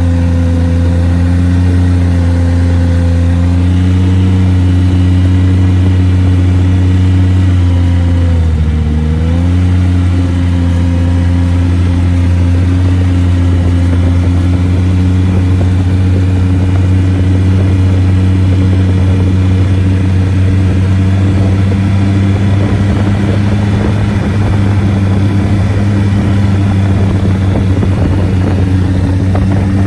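Snowmobile engine running steadily at a low cruise, heard from the rider's seat. Its pitch dips briefly about eight seconds in as the throttle eases, then climbs back to the same steady note.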